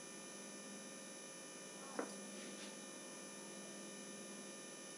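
Faint, steady electrical hum, with one brief soft sound about two seconds in.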